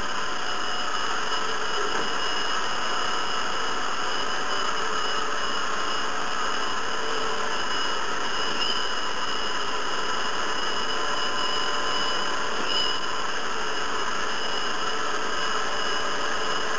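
Hair dryer running steadily: an even blowing rush with a thin, steady whine above it.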